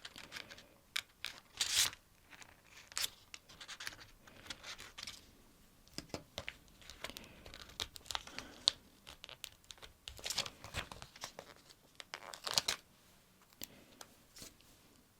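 Stickers being peeled off their backing sheet and pressed and smoothed onto a paper sticker-book page: short, irregular sticky peeling rasps and paper rustles with small clicks, a few louder peels among them.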